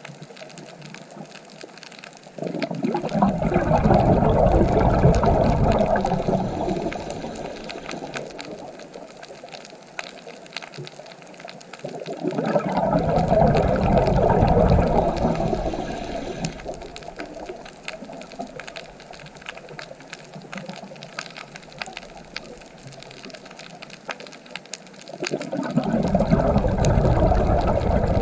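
Ocean waves breaking, three of them: one about two seconds in, one about twelve seconds in and one near the end. Each comes in suddenly with a deep rumble and washes out over several seconds, with a softer hiss of water in between.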